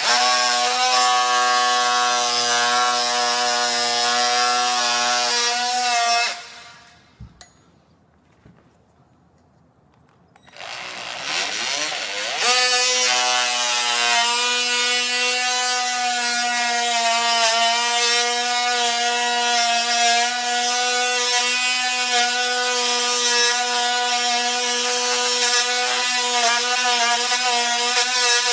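Oscillating multi-tool running with a steady whine as its blade cuts a groove through glued-down hardwood flooring along the seam between boards. It stops about six seconds in, starts again about four seconds later with its pitch rising as it comes up to speed, then runs steadily on.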